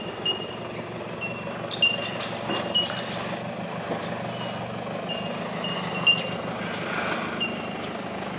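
Toyota Hilux Vigo's 3.0 L turbo-diesel engine running at low revs as the 4x4 crawls down a rutted off-road track, with a few sharp knocks as the wheels and suspension drop over ruts. Short high-pitched tones chirp on and off over it.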